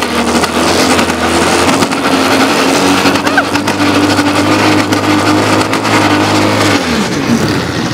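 ATV engine running at steady high revs while the quad spins donuts on loose dry dirt, with tyres scrabbling over the ground. The engine note falls away about seven seconds in as the throttle comes off.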